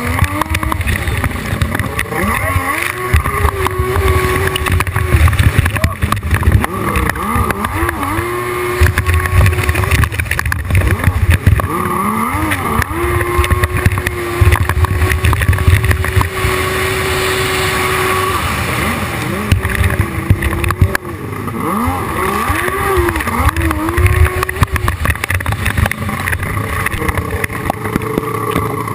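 Hydrospace 1100 racing jet ski engine running hard, its pitch climbing, holding at full revs for a few seconds, then dropping and climbing again over and over as the rider throttles through the course.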